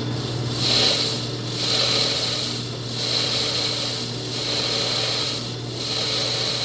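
Metal lathe turning down the register of a chuck back plate: a steady motor hum under a high scraping cutting noise that swells and fades about once a second.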